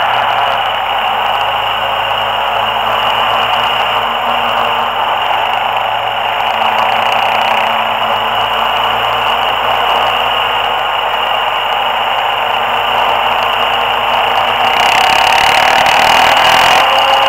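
Steady rush of wind and road noise on the microphone of a camera riding along on a moving vehicle, with a steady high tone over it; the hiss grows a little louder about fifteen seconds in.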